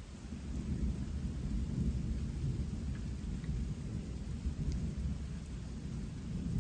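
Rolling thunder: a deep rumble that swells about half a second in and keeps going, over a faint patter of rain.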